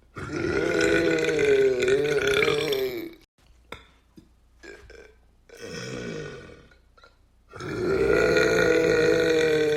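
A man burping on purpose: two long, drawn-out burps of about three seconds each, with a shorter, quieter burp between them.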